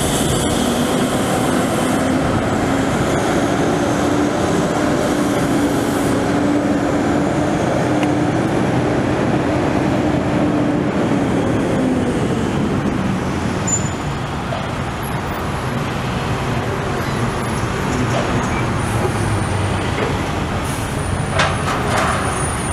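Heavy diesel machinery running steadily, a constant drone with an engine hum that shifts pitch in small steps and drops lower about halfway through. A few sharp clanks near the end.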